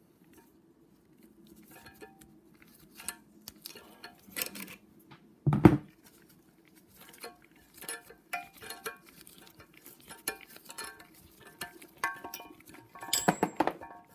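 Irregular metallic clicks and clinks of steel tools on an aluminium cylinder head as needle-nose pliers and a valve spring compressor are used to fit valve keepers. There is one loud knock about halfway through and a quick run of clinks near the end.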